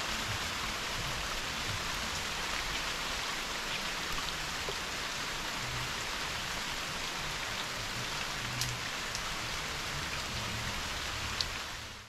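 Steady rain falling, an even hiss of drops, with a few sharper ticks, the loudest near the end.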